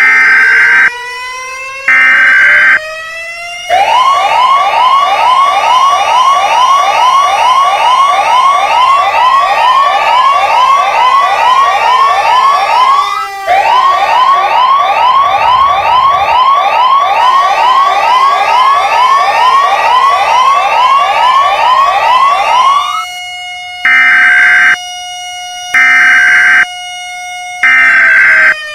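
Electronic emergency alert alarm. It opens with a loud beep about every two seconds over a slowly rising siren tone. About four seconds in it switches to rapid rising chirps, about three a second, over slowly gliding siren tones, broken once by a short gap near the middle. Near the end the beeps about every two seconds return.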